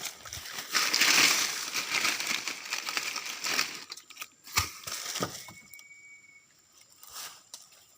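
Rustling and crunching noise, loudest in the first half. A sharp click comes about four and a half seconds in, and a brief thin high tone follows about a second later.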